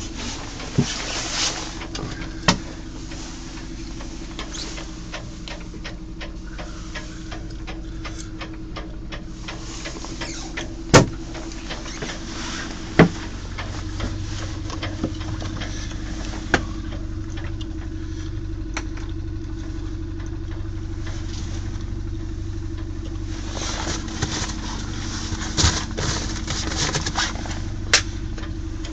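Steady low mechanical hum, broken by sharp knocks and clacks as locker lids and hatch covers in a sailboat's cabin are opened and set down. The two loudest knocks come near the middle, with a run of smaller clicks near the end.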